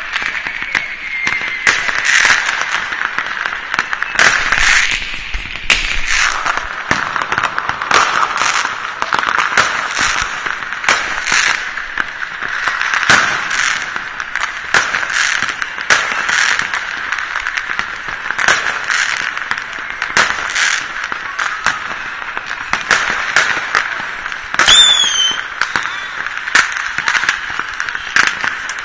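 New Year's fireworks and firecrackers going off all over a town: a steady din of distant bangs and crackling with frequent sharper bangs at irregular intervals, and a brief whistle near the end.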